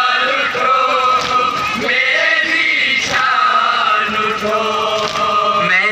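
A group of men chanting a nauha, a Muharram mourning lament, in unison. A lead voice holds long notes, with others joining.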